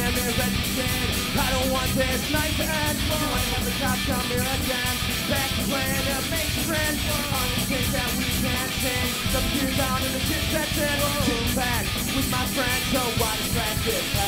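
Live rock band playing a song: electric guitars, bass guitar and drums, with a horn section of trumpet, trombone and saxophone.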